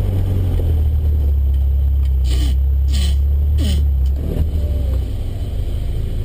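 Land Rover Discovery 1's 300Tdi four-cylinder turbodiesel heard from inside the cab, running loudly on the move, then easing off about four seconds in. Three short scraping sounds come about two, three and three and a half seconds in.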